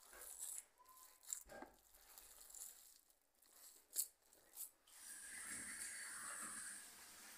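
A hand kneading raw kibe mixture of ground beef and bulgur wheat in a plastic bowl: soft, wet squishing with a few short sticky clicks. From about five seconds in, a faint steady hiss joins it.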